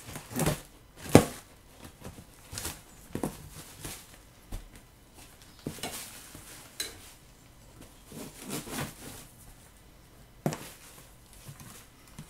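Knife slitting duct tape on a cardboard box, with irregular scrapes and crackles of the cardboard flaps and a black plastic bag being handled and pulled away. The sharpest snap comes about a second in.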